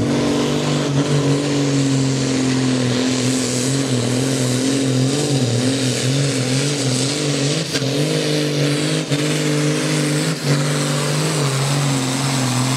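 Turbocharged Case 2090 tractor's 8.3-litre six-cylinder diesel, tuned to about 600 hp, running flat out under full load as it pulls the weight sled. The engine note holds steady at high revs, wavering a little in pitch midway.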